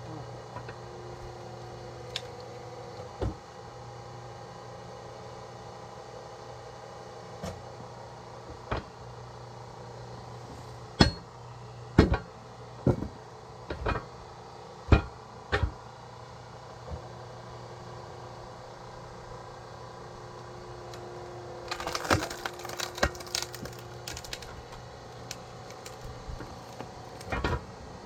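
Hydraulic log splitter running with a steady hum while splitting firewood. About ten sharp knocks and cracks of wood come in the first half, then a spell of crackling as wood fibres tear apart about three-quarters of the way in, and one more knock near the end.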